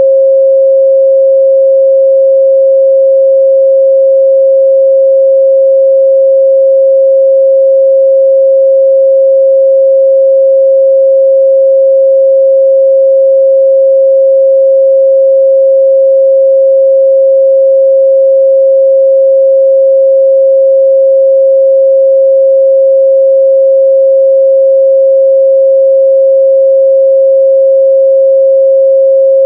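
A continuous, steady 538 Hz sine-wave test tone, one pure pitch with no change in level.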